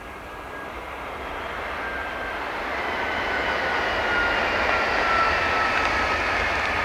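Doctor Yellow, the yellow Class 923 Shinkansen inspection train, approaching and passing at high speed: a rush of air and running noise that swells over the first few seconds, with thin whining tones sliding slowly down in pitch.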